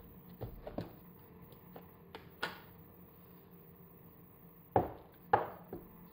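Food containers and their plastic lids being handled on a countertop: a few scattered knocks and clatters, the two loudest about five seconds in.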